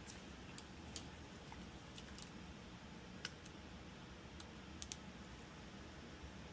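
Faint, scattered light clicks and taps, a few seconds apart with a close pair near the end, over a quiet room hiss while small parts are handled during relay testing.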